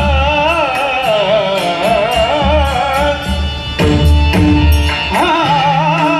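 Male voice singing a Marathi abhang (Varkari devotional song) in long, ornamented, wavering phrases, accompanied by harmonium and a barrel drum keeping a steady beat.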